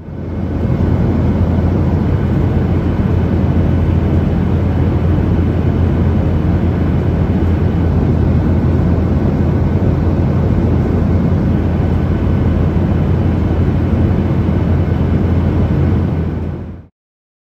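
Boeing 737-800 jet aircraft noise: a loud, steady rushing sound over a strong low hum. It fades in at the start and fades out about a second before the end.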